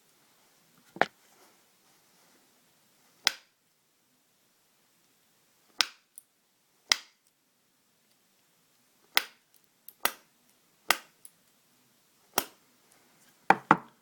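Bump key in a Master padlock being struck again and again: sharp metallic taps at uneven gaps of one to three seconds, with two quick clicks near the end, as the bumping works to open the lock.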